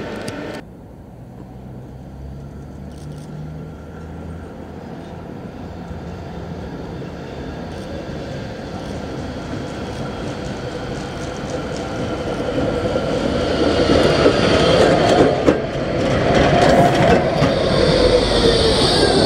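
Modern light-rail tram approaching and passing close by, its wheel and rail noise growing steadily louder. A few sharp clicks come from the track as it nears, and a high whine rises as it draws level.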